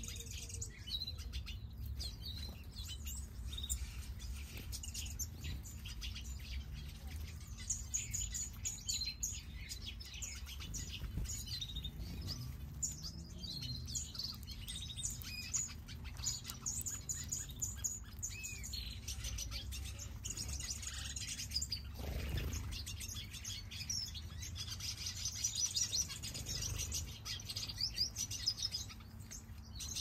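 A mixed flock of small aviary finches chirping and twittering together: a dense, continuous chatter of short high calls and trills.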